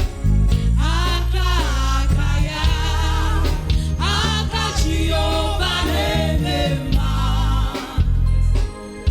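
Gospel praise-and-worship music: singing voices with vibrato over a strong, steady bass line, dropping briefly just before the end.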